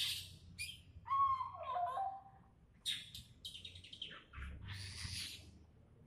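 Caged songbird calling: a drawn-out note that slides down in pitch about a second in, followed by a run of quick, scratchy, high chirps.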